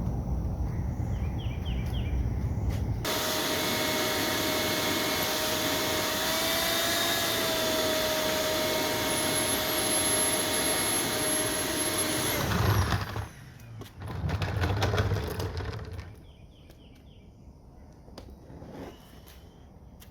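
Electric heat gun switched on, running for about nine seconds with a steady whine over a rush of air, its pitch bending briefly midway, then switched off. A few knocks and handling thumps follow, with faint bird chirps before and after.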